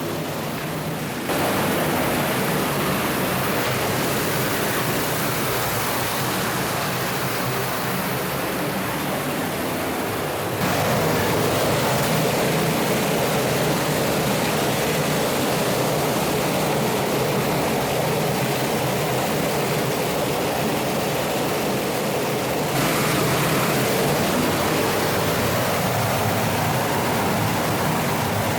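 Rushing water of a mountain stream and waterfall in a narrow rock gorge: a loud, even wash of water noise whose level and tone shift abruptly about a second in, about ten seconds in and about twenty-two seconds in.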